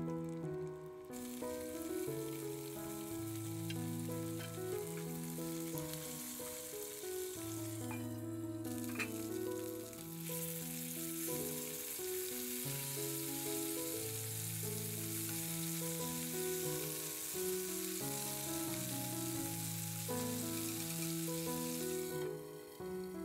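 Pieces of floured fish sizzling as they shallow-fry in oil in a frying pan, over background music with a slow melody. The sizzle starts about a second in, cuts out briefly around eight seconds in, and drops away near the end.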